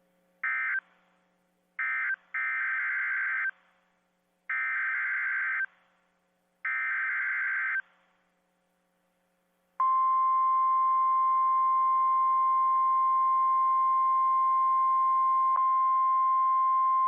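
Emergency Alert System SAME header data bursts on NOAA Weather Radio: two short buzzy blips, then three buzzy digital tones about a second long each. About ten seconds in, the steady single-pitch 1050 Hz NOAA Weather Radio warning alarm tone starts, signalling that a warning message is about to be broadcast.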